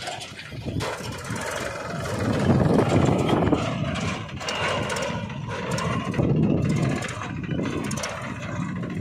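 Engine of a homemade mini Mahindra 275 DI tractor running as it drives along towing a small trolley, swelling louder about three seconds in and again around six to seven seconds.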